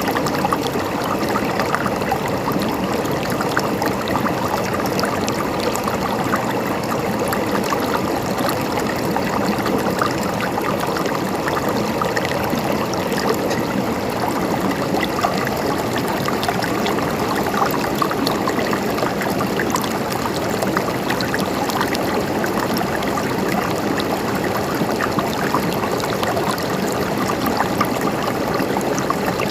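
River water flowing over rocks: a steady rushing and gurgling with no breaks.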